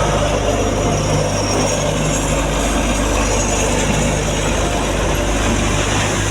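An engine running steadily with a low hum and a constant wash of noise over it.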